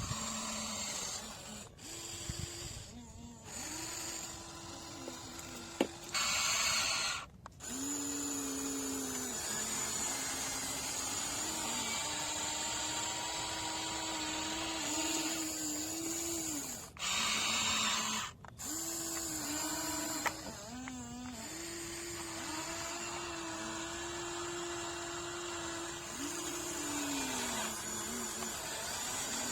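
Small electric motors of radio-controlled construction models whining, the pitch stepping up and down as the machines are worked, with two short, louder noisy stretches about six and seventeen seconds in.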